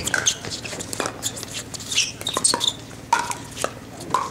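Pickleball rally: paddles striking a hard plastic pickleball back and forth, a run of sharp pops several times over a few seconds.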